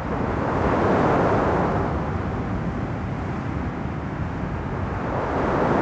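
Recorded ocean waves from a sound piece: a wash of noise that swells up about a second in, eases a little, and swells again near the end.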